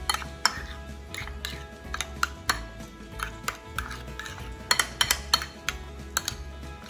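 A utensil stirring thick tartar sauce in a bowl, clinking against the bowl's side in irregular knocks, a few a second, with a busier run of clinks around five seconds in.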